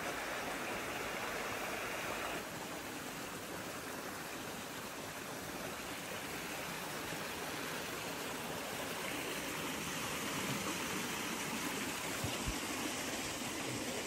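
Forest stream rushing steadily over rocks.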